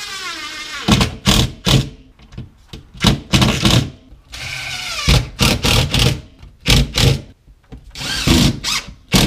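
Cordless drill driving screws up through the drywall ceiling to secure it: the motor whines as it spins up, then comes a quick run of sharp strokes as a screw goes in, repeated several times, with another short whine near the end.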